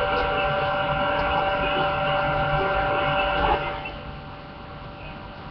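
Steady hum made of several high tones over a hiss, dropping noticeably quieter about three and a half seconds in.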